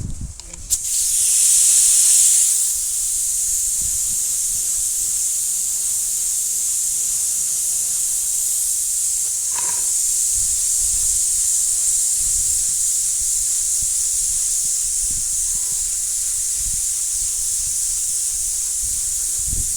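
Air spray gun spraying pearl paint, blending it into the surrounding panel: a steady high hiss that starts about a second in, is strongest for the first couple of seconds, then holds level.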